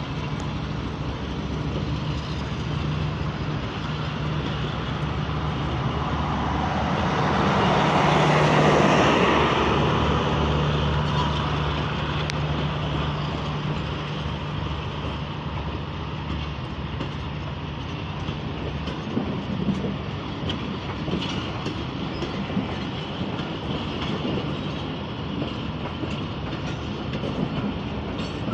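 GEU-40 diesel-electric locomotive pulling a passenger train out of the station, its engine droning steadily and growing loudest about eight or nine seconds in as it passes. The coaches then roll by with wheel clatter and scattered clicks.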